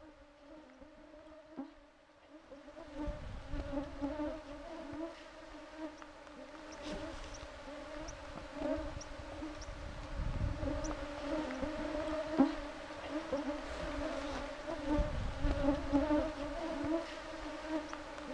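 A swarm of mosquitoes buzzing close around a face, a steady whining hum with a rising and falling drone. Low rumbling noise joins from about three seconds in.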